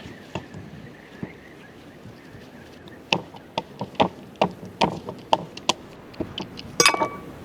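A series of sharp knocks, about two a second, starting about three seconds in, ending with a brief cluster of clicks that has a short ringing tone.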